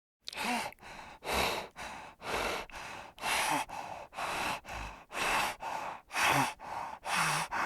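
An animal's rhythmic heavy breathing, about one breath cycle a second, each louder breath followed by a softer one.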